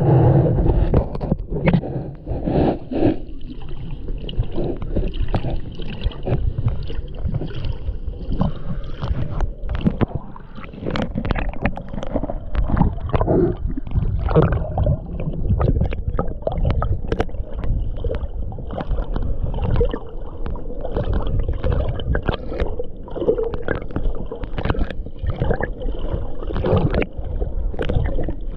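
Muffled underwater water noise heard through a submerged camera: a continuous low rumble of moving water with many small clicks and crackles.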